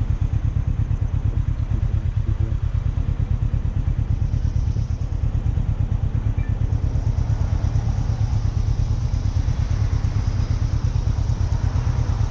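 Suzuki motorcycle engine idling steadily, a fast, even pulsing beat, while the bike sits stopped in traffic.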